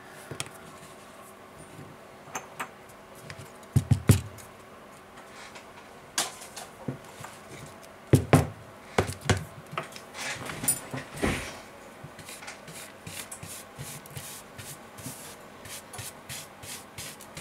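Scraping and rubbing of hand tools and broken screen-glass fragments on a cork work mat. Scattered small clicks come through, with sharp knocks about four and eight seconds in. The rubbing turns into quick, dense strokes in the last several seconds.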